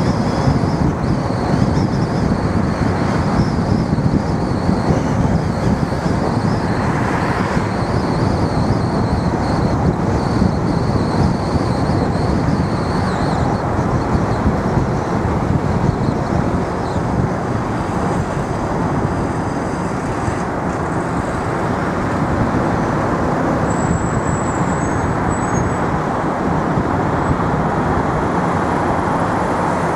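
Steady road noise of a car driving at town speed, mostly tyre and engine rumble, with a faint high wavering whine through about the first half.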